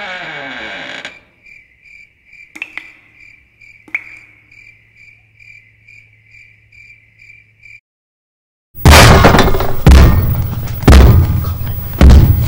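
A short musical tone ends, then crickets chirp steadily at a couple of chirps a second. After a moment of silence, loud heavy banging starts, about one blow a second, pounding on the floor from below that the tenants take for a sledgehammer.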